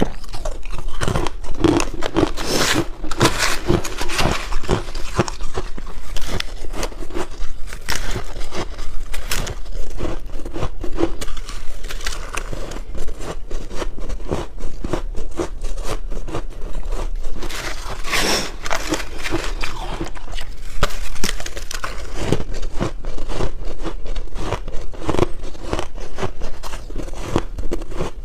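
Close-up biting and crunching of soft, powdery white freezer-frost ice: a dense run of sharp, crackly crunches, one bite after another.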